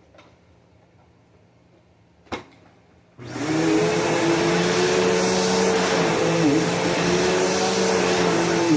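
A sharp click, then about three seconds in a Bissell PowerForce Bagless Turbo 6596 upright vacuum cleaner switches on and runs steadily with a loud motor whine.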